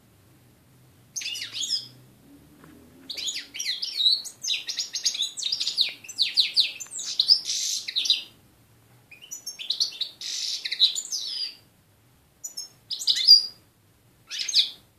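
European goldfinch singing in rapid twittering phrases. A short burst comes about a second in, then a long run of song, a second run, and a few short calls near the end.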